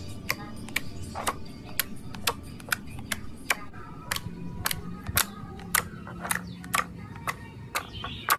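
Clear glossy slime clicking and popping sharply as fingers press and poke into it, about two pops a second at an uneven pace.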